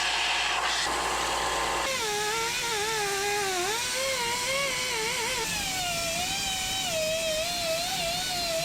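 A high-speed power tool motor whining, starting about two seconds in, its pitch wavering and dipping as the tool is loaded.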